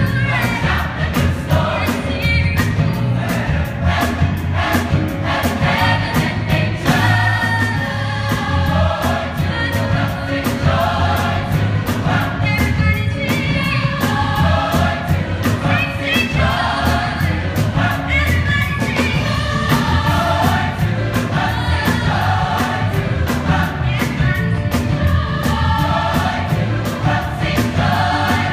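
Music: a choir singing over an instrumental backing with a steady beat.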